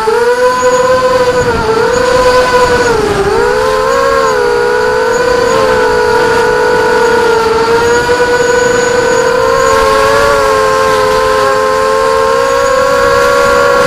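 Motors and propellers of a multirotor drone in flight, heard from its onboard camera. It is a loud, steady whine made of a few close tones, and its pitch dips and rises a little as the throttle changes, most noticeably about three seconds in.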